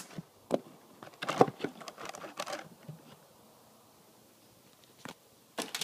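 A few short rustles and knocks of handling: plastic-bagged model airliner parts being picked up and moved about. A near-quiet stretch follows in the middle.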